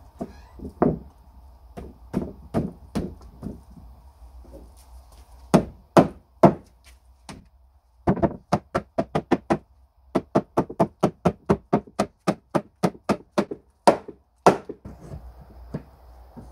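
Mallet blows on a solid oak workbench, driving its freshly glued joints together: scattered knocks, then quick runs of about three to four knocks a second, and two heavy blows near the end.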